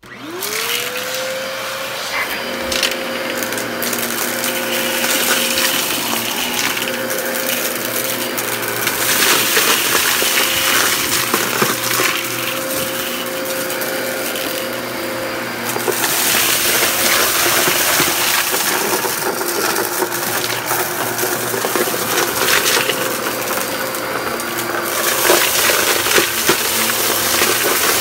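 Dyson vacuum cleaner switched on, its motor spinning up within half a second to a steady whine, then sucking up a pile of gritty dirt and crumbs from carpet. The debris rattles and crackles through the cleaner head and bin, louder in two long stretches.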